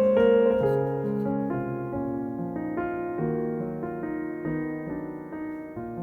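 Background music: slow, gentle piano, one note or chord after another.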